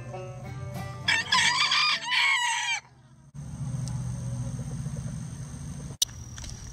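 A rooster crowing once, loud, in a drawn-out call of two parts, as background music ends about a second in.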